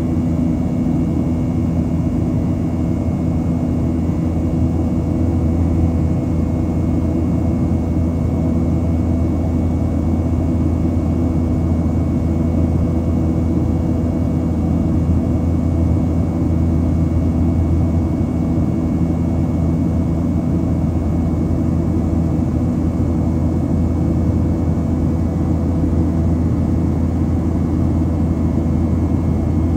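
Cabin noise of a Boeing 737-800 climbing out after takeoff, heard from a window seat beside the wing: the steady low rumble of its CFM56-7B turbofan engines and airflow, with a few faint steady hums over it.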